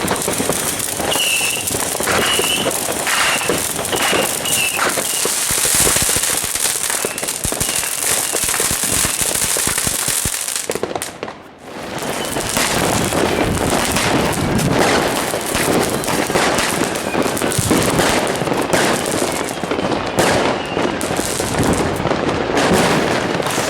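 Fireworks going off in rapid succession, a dense run of bangs and crackle that briefly drops away about eleven seconds in before building up again.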